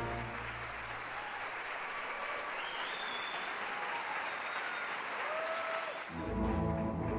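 Audience applauding after the music stops; new music starts up about six seconds in.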